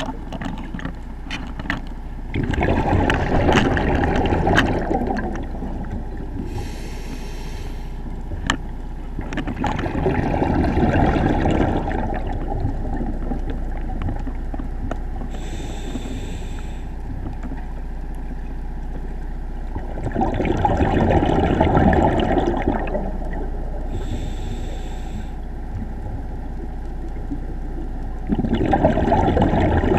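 Scuba diver breathing through a regulator: a short hiss on each inhale, then a few seconds later a longer burble of exhaled bubbles, four times at a steady rhythm of about one breath every eight to nine seconds, over a steady low hum.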